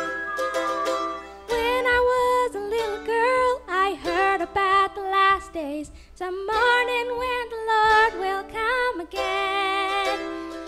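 Live gospel band with acoustic guitar, mandolin and bass guitar. A held instrumental note opens, then several voices come in about a second and a half in, singing together in harmony over the strings.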